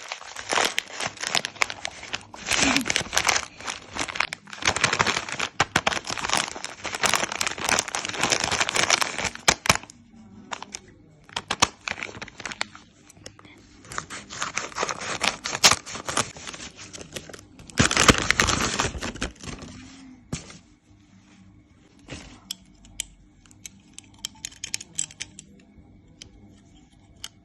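Blind-bag wrappers being torn open and crinkled, crackling in long bursts through the first ten seconds and again twice later. Near the end it thins to scattered small clicks and rustles.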